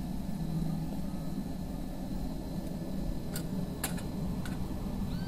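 A steady low mechanical hum, with three sharp clicks in the second half.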